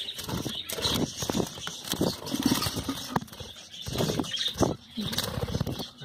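Handling noise as a wooden budgie nest box is opened and looked into: irregular knocks, clicks and rustles, with budgerigars chattering.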